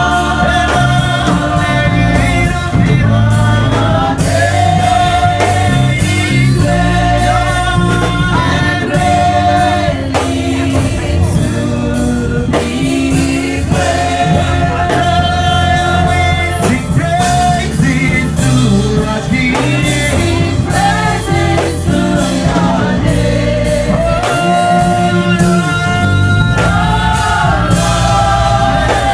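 Gospel worship music: singing over a live band with a steady beat.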